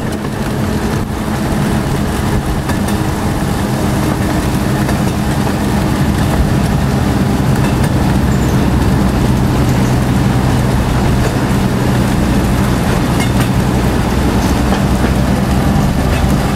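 Rio Grande Southern Galloping Goose #7 rail motor car running along the track, heard from on board: a steady engine note with the rumble of the wheels on the rails, growing a little louder over the first few seconds.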